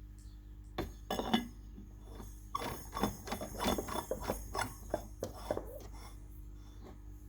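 Glass heat-lamp bulb being screwed into its metal socket: a run of short clinks and scrapes of glass against metal, in a brief group about a second in and a longer, busier stretch through the middle.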